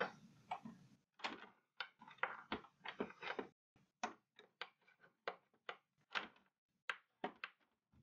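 Plastic case of an LCD TV being prised apart along its edge: a quick, irregular series of sharp clicks and snaps as the clips let go and the plastic flexes.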